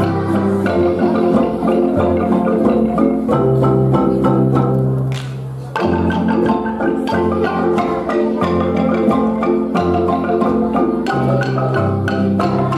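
Kolintang ensemble, the Minahasan wooden xylophones with their bass instruments, played by children: quick struck melody and chords over changing bass notes. The playing thins briefly about five seconds in, then comes back full.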